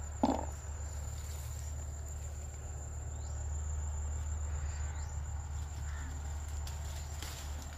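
A steady high-pitched insect trill runs on without a break over a low steady hum, with one short knock about a quarter second in.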